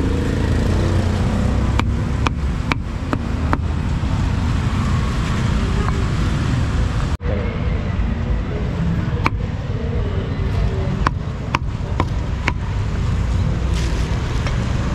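A cleaver chopping roast pork on a thick wooden chopping block: sharp chops in two quick runs of about five each, one starting about two seconds in and one about nine seconds in. Steady street traffic rumbles underneath.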